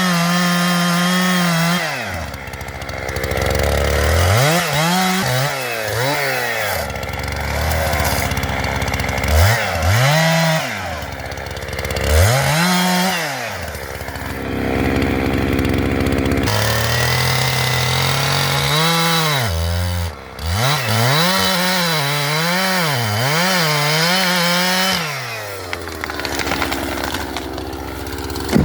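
Jonsered two-stroke chainsaw revving up and down again and again, its pitch climbing and falling, with lower steadier stretches between, while cutting wood to fell a tree.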